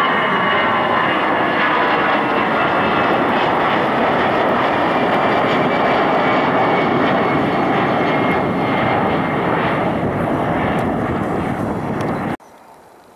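Jet airliner's twin engines at climb power just after takeoff: a loud, steady rush with whining tones that slowly fade as the plane climbs away. The sound cuts off suddenly near the end.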